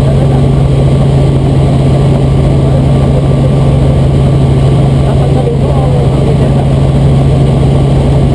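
Robinson R44 Raven II helicopter in level flight, heard from inside the cabin: the steady, loud drone of its six-cylinder Lycoming IO-540 engine and rotor system, unchanging in pitch and level.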